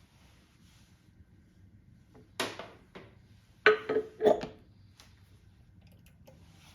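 Metal turntable accessories being handled and set in place: a knock about two and a half seconds in, then three sharp, ringing metallic clinks close together about a second later.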